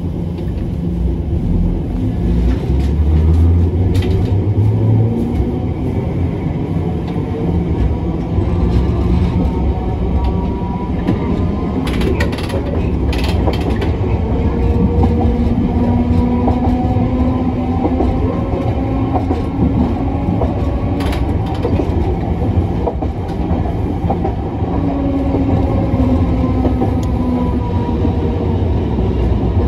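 Hiroshima Electric Railway 1900-series tram, a former Kyoto city tram, running, heard from on board. The wheels on the rails make a steady rumble, a whine glides up and down with the changing speed, and there are a few sharp clicks.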